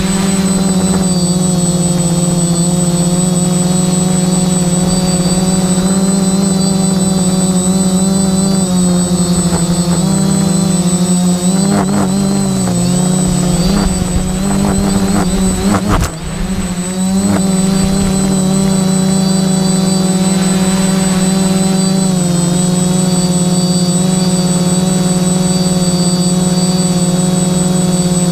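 SK450 quadcopter's brushless motors and propellers running steadily in flight, heard close up from the onboard camera as a loud, even drone. Midway through, the pitch wavers and dips, with a few sharp clicks and a brief drop in level, before it settles back to a steady drone.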